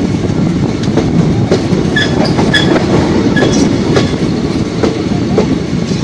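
Train running on the track, heard from on board: a steady rumble of wheels on rail with irregular clicks as the wheels cross rail joints, and a few short high squeaks midway.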